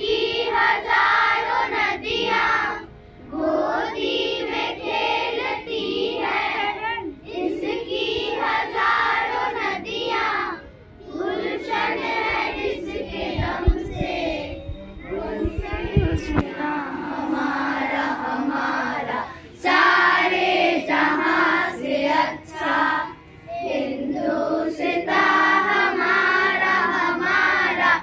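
A group of children singing a song together in unison, phrase after phrase with short breaths between. A few low knocks sound about halfway through.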